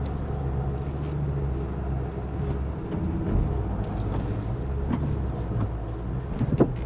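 The Ford Ranger's 3.2-litre five-cylinder turbodiesel is pulling steadily under load as the pickup climbs a steep muddy slope in low range, second gear, with the diff lock engaged. There is one short knock near the end.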